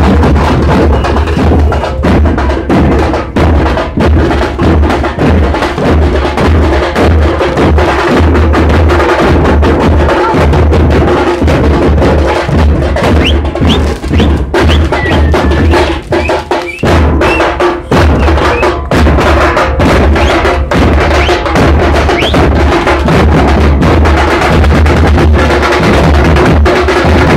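A band of large street drums playing a loud, fast, driving rhythm. A few brief rising whistles from fireworks come in around the middle.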